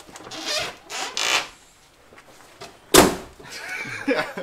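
Scraping and rustling as a large tractor tyre on its steel rim is handled, then one heavy thud about three seconds in as it is set down.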